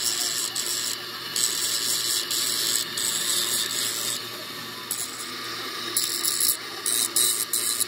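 Steel differential pinion's teeth being ground against a spinning abrasive wheel: a steady grinding hiss over the hum of the wheel's motor. The hiss drops away briefly about a second in and again for a couple of seconds in the middle, where the work comes off the wheel.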